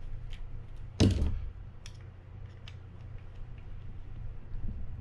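Light clicks and taps of small metal reel parts and hand tools being handled during reassembly of a conventional fishing reel, with one sharp louder knock about a second in.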